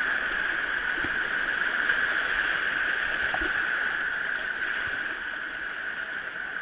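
Steady rush of a mountain river's flowing water over rapids.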